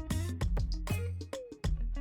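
Background music with a steady beat and plucked notes.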